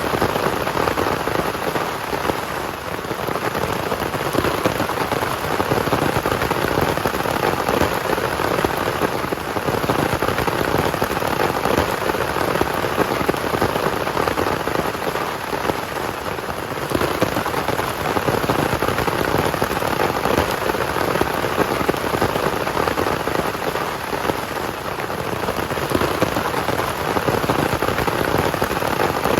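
Heavy rain falling steadily on a surface, a dense, even downpour.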